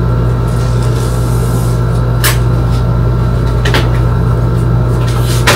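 A steady low hum, with three short sharp knocks about two, three and a half and five and a half seconds in.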